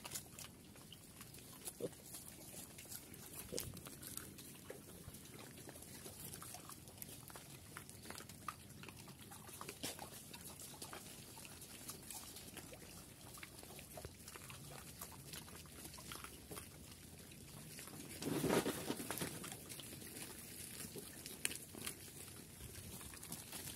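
A group of Chrouk Kandorl piglets grunting and snuffling as they root in dirt and dry litter, with many small scattered crackles and scuffs. A louder burst about three-quarters of the way through.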